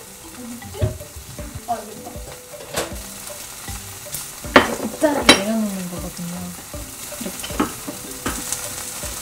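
Food sizzling steadily in a frying pan on the stovetop, with a few sharp knocks and clicks around it.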